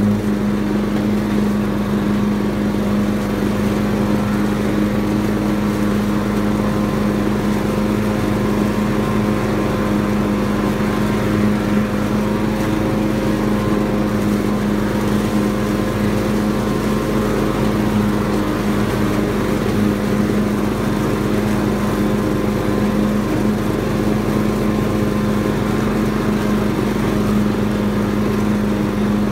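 Ride-on tractor lawnmower's engine running at a steady speed, its pitch holding constant throughout.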